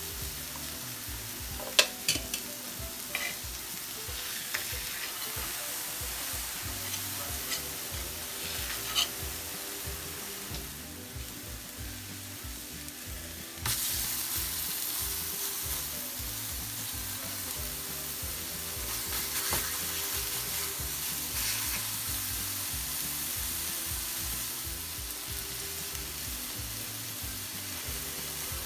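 Raw ground-chicken burger patties sizzling on a hot, oiled griddle. About fourteen seconds in, another patty goes down on the hot surface and the sizzle jumps louder and stays there. A few light clicks of handling come about two seconds in and again near nine seconds.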